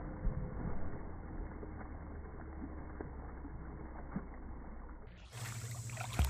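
Slowed-down, muffled splashing and sloshing of pool water as a dog swims. About five seconds in, the sound switches to normal speed and becomes clear and full, with a steady low hum.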